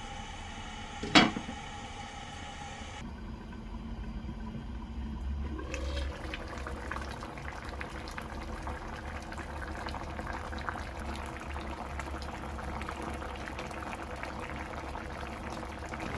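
Liquid bubbling steadily, with a dense crackle of small pops. A single sharp click comes about a second in.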